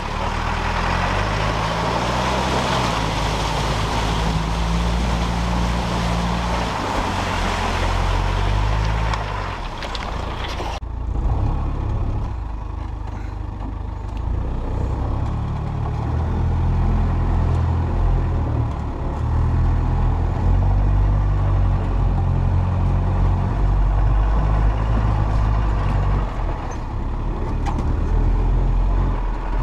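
Land Rover ambulance camper's diesel engine labouring off-road, its note rising and falling with the throttle. A loud rushing noise covers it at first and cuts off abruptly about eleven seconds in, leaving the engine drone heard from inside the cab.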